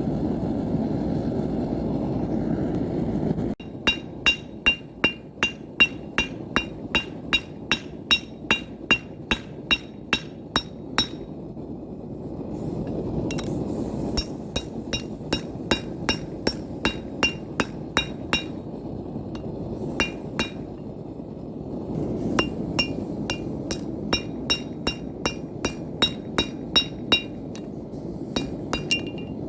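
A hammer striking a hot railroad spike on an anvil, forging a knife: runs of ringing metal-on-metal blows about three a second, with two short pauses. A steady rushing noise, the forge, fills the first few seconds and continues faintly under the blows.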